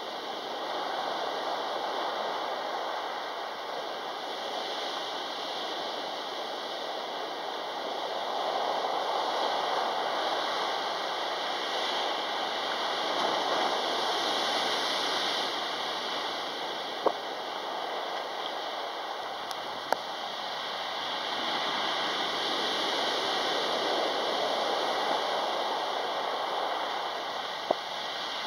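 Rough sea waves breaking and washing up a pebble beach, the surf rising and falling in slow surges. A few sharp clicks stand out, single ones about two-thirds of the way in and near the end.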